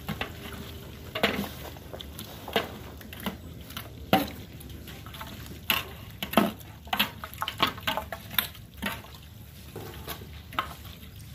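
Long metal ladle stirring chunks of beef and bone in a large aluminium pot, scraping and clanking against the pot's side at irregular moments, with the meat cooking in its juices. A steady low rumble runs underneath.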